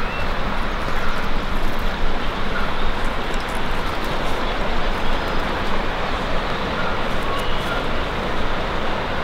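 Steady loud rushing outdoor noise with a jittery low rumble, with a few brief faint high chirps over it.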